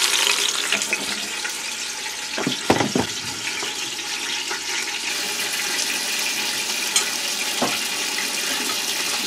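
Beef roast sizzling steadily as it sears in the hot stainless inner pot of an Instant Pot on sauté. A few sharp clicks of metal tongs against the pot come about three seconds in and again near the end.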